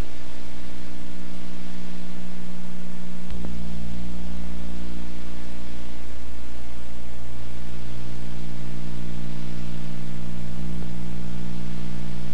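Steady hiss with a low electrical hum and buzz, the background noise of an old camcorder tape. About three seconds in, the low hum shifts abruptly and grows louder.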